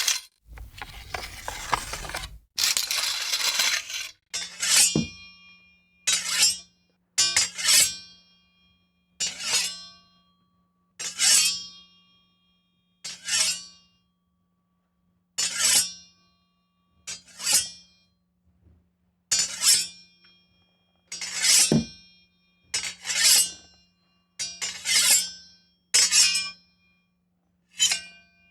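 Sword sound effects played one after another: first a few seconds of metallic scraping, like a blade drawn or grinding along steel, then about fourteen separate sharp metallic blade strikes. Each strike rings briefly and fades, with gaps of one to two seconds between them.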